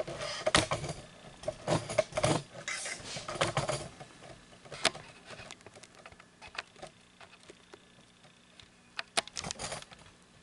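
A loose paper book page rustling as it is handled, with light clicks. The rustling is busiest in the first few seconds, then gives way to a few scattered clicks.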